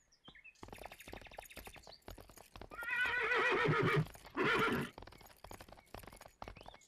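Horse hoofbeats, and about three seconds in a horse whinnies: one long quavering neigh, then a shorter one.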